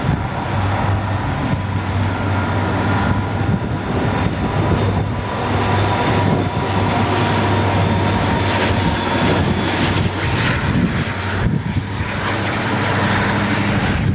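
Burlington Northern diesel-electric locomotives passing close, their engines running loud with a steady low drone and a thin high whine over the rumble of the train.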